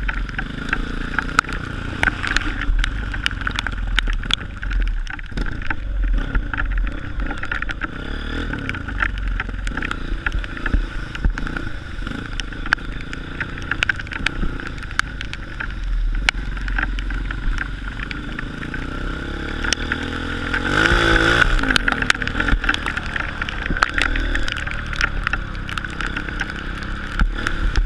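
Honda CRF 230 trail bike's single-cylinder four-stroke engine running under way, with many sharp clicks and knocks throughout. The engine revs up briefly about twenty-one seconds in.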